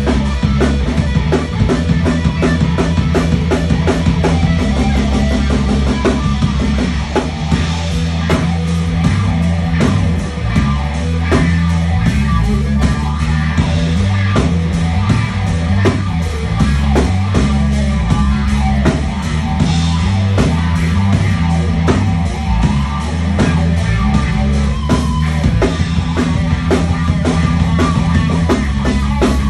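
Live blues-rock band playing loud: distorted electric guitar over a steady drum kit beat and a moving low line.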